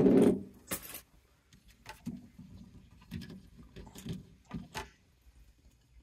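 Small boiler pressure-relief-valve parts, the valve head and its rubber seal, being handled in the fingers: a loud knock at the start and a sharp click just under a second in, then scattered light clicks and taps that stop about five seconds in.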